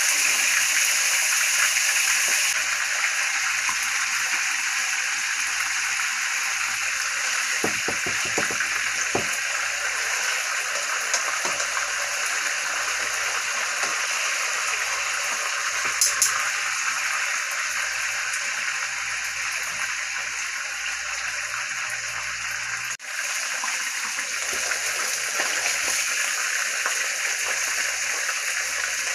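Cube steaks sizzling steadily in hot oil in a frying pan, with a few light clicks of metal tongs as the steaks are turned.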